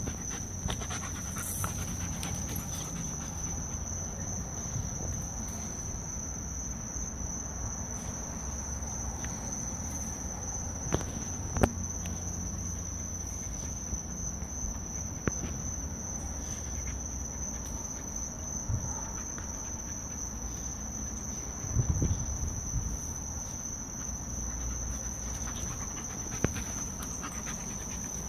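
Crickets chirring in a steady high-pitched drone, under two dogs playing on dirt: some panting, a few short sharp knocks and a brief cluster of thuds from paws and bodies scuffling.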